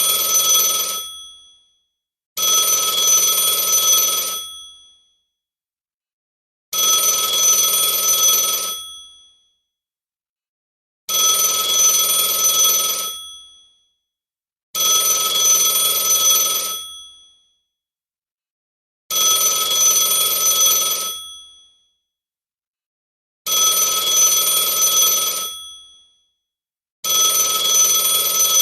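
A telephone bell ringing in repeated bursts of about two seconds, each fading out as it stops, with a ring roughly every four seconds and silence between.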